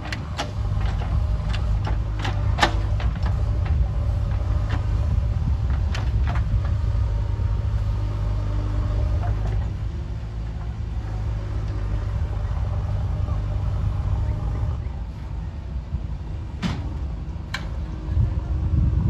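JCB 3DX backhoe loader's diesel engine running, with occasional sharp knocks from the working machine. The engine note drops noticeably about three-quarters of the way through.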